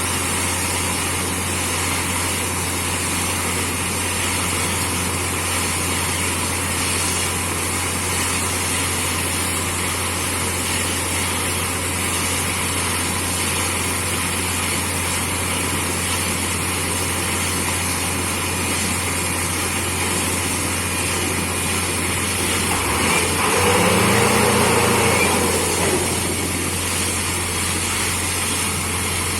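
Borewell drilling rig's diesel engine and air compressor running steadily with a constant low hum. About 23 seconds in it gets louder for a couple of seconds with a pitch that rises and falls back.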